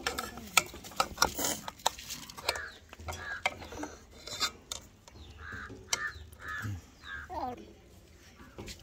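Steel scissors clicking, scraping and snipping as sea snail meat is cut out of its shell, with sharp taps against a steel tray.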